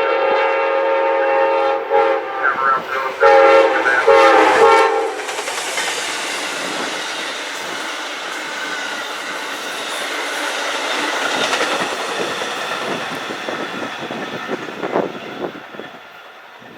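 Amtrak passenger locomotive's air horn sounding a multi-note chord in several blasts with short breaks, stopping about five seconds in. Then the train passes at speed, a steady rush and clatter of wheels on rail that fades away.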